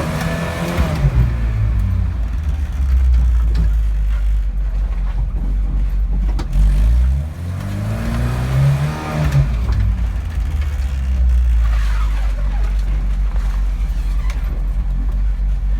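Volkswagen Iltis off-road vehicle's engine running under load as it drives, over a constant low rumble. The revs climb and drop again several times, with the clearest rise about eight seconds in.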